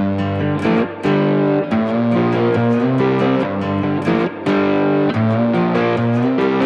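Intro music: electric guitar playing with a steady beat.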